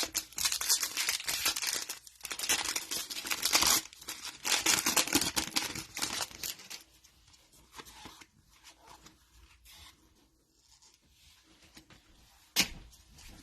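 A trading-card pack wrapper being torn open and crinkled by hand: three loud rips over the first six seconds or so, then quieter rustling, with a short sharp crackle near the end.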